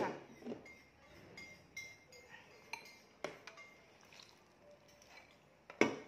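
Light clinks and knocks of kitchenware being handled on a table: plastic containers and a stainless steel bowl being moved about, with a sharper knock near the end.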